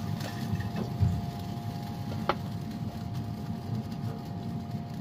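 A pellet grill running with a steady mechanical hum, while metal tongs lift smoked rib racks off the steel grate, giving a couple of sharp metal clinks, the clearest about two seconds in.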